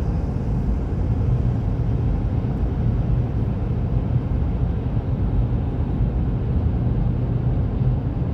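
Steady low rumble of road and engine noise inside a car's cabin while driving at speed.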